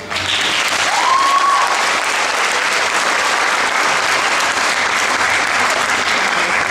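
Theatre audience applauding at the end of a musical number, breaking out suddenly and holding steady. About a second in, one rising call from the crowd sounds above the clapping.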